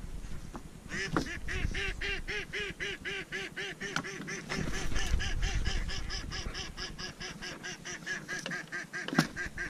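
Waterfowl calling: a fast, even run of nasal calls, about four or five a second, starting about a second in and going on without a break. A sharp click sounds near the end.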